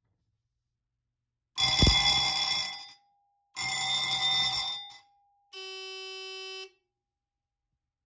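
Fire alarm bell on a Simplex 4001C panel's signal circuit rings in two short bursts, each about a second and a half: the walk-test signal after a smoke detector is set off. A quieter steady electronic tone follows for about a second.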